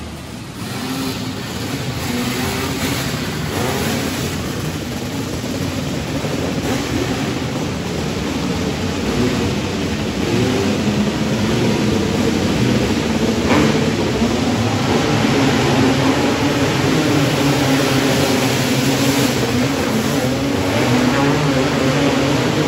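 A pack of 500cc cage karts racing on a dirt oval, several engines running at once, their pitch wavering up and down as they accelerate and lift through the turns.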